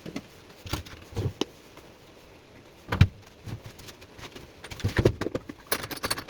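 Scattered knocks and clicks of hand tools being picked up and set down, the loudest about three seconds in, then a quick run of metallic rattling near the end.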